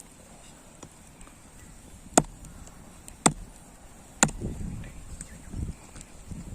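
Three sharp knocks about a second apart, followed by a few duller, lower thuds.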